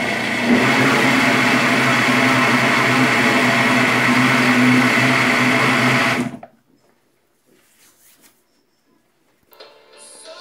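Walita countertop blender running at a steady pitch, mixing a thick batter, then switched off about six seconds in, the motor cutting out quickly. It is a short blend of about five seconds to mix in the baking powder.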